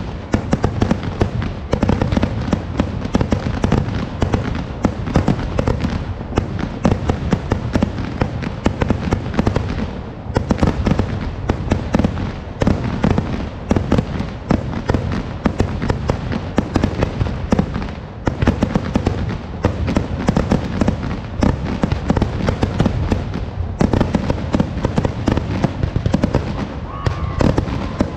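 Vedikkettu fireworks display: a dense, continuous barrage of firework bangs and cracks, overlapping with barely a gap and easing only briefly a few times.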